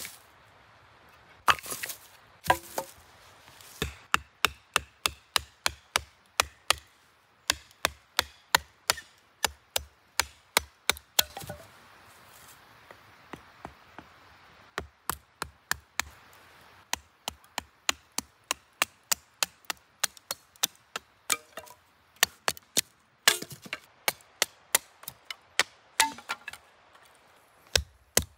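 Repeated sharp chopping strikes, about three a second, in runs broken by short pauses, with a fainter run around halfway.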